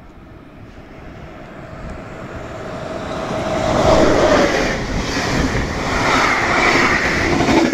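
Electric locomotive-hauled passenger train approaching and passing close by at speed. The rumble builds for about four seconds and a tone falls in pitch as the locomotive goes by. The coaches' wheels then click rhythmically over the rail joints.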